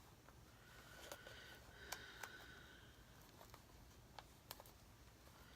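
Near silence with a few faint clicks and taps of a packaged paper pack being handled and opened.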